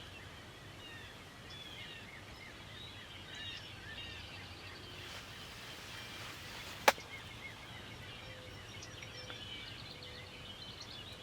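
Small songbirds chirping and singing in spring woodland, with one sharp click about seven seconds in.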